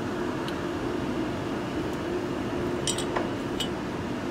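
Steady hum of shop ventilation, with a few faint metallic clicks as a steel rule is set against the jaws of a lathe's four-jaw chuck, mostly around three seconds in.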